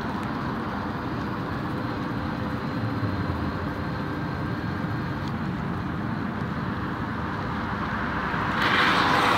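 Steady rolling and wind noise of riding along a paved bike path, with a faint steady hum under it. Near the end a car passing on the road alongside swells into a louder rush for about a second.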